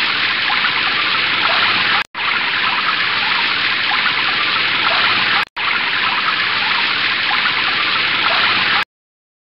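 Loud, steady rushing-water noise, broken twice by brief dropouts about two and five and a half seconds in, then cutting off abruptly about a second before the end.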